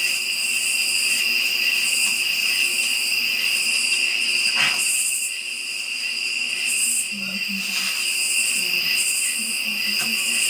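Night insect chorus: crickets trilling in a steady, high, unbroken drone, with a higher pulsing buzz about once a second.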